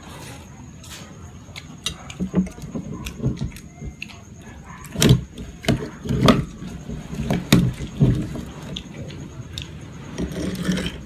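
A series of sharp knocks and clicks close to the microphone as a glass of cola and a plastic bag of ice are handled, ending with ice cubes rattling as they are dropped into the glass.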